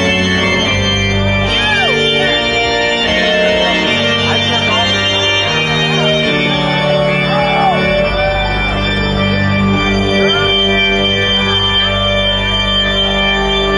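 Organ music playing slow, held chords that change every second or two, with crowd voices underneath.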